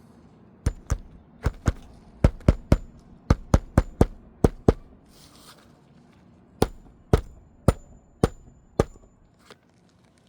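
Hammer striking roofing nails into asphalt shingles: about eighteen sharp blows in quick runs, with a pause of about two seconds midway.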